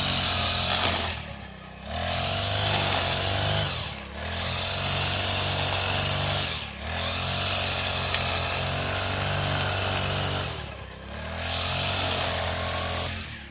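Handheld engine-driven brush cutter running at high revs while cutting grass, the throttle eased off and opened again four times.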